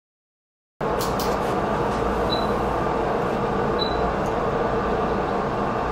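Silence that cuts abruptly, under a second in, to a steady hum and hiss of running bench electronics, typical of the oscilloscope's and power supplies' cooling fans. A few sharp clicks of cable handling come just after it starts, and faint, short high-pitched chirps sound about three times.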